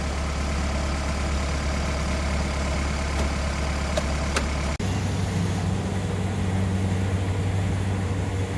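Kubota combine harvester's diesel engine running steadily, with a couple of sharp clicks about four seconds in. Just before halfway the sound breaks off for an instant and comes back with the engine at a different pitch.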